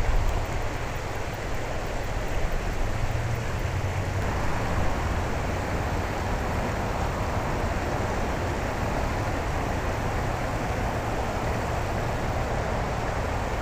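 Steady rushing of running water, with a low hum under it that fades out about four seconds in.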